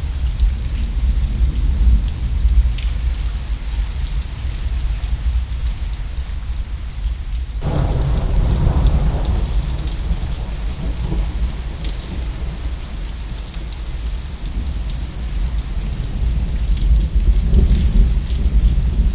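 Thunderstorm: steady rain with scattered drop ticks over a low rumble, and a thunderclap breaking in suddenly about eight seconds in, then rumbling away over several seconds.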